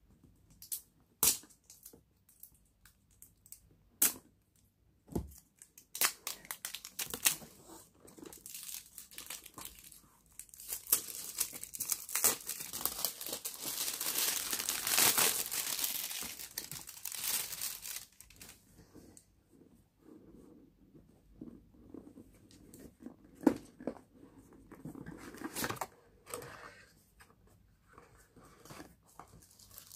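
A cardboard product box being cut open with scissors and its packaging torn and crinkled. A few sharp snips and clicks come in the first few seconds, then a long stretch of tearing and rustling from about ten to eighteen seconds in, then lighter handling noises.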